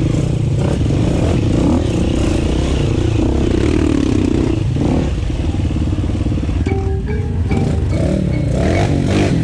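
KTM 350 dirt bike's single-cylinder four-stroke engine running at low revs as it crawls along, with other dirt bikes' engines close by.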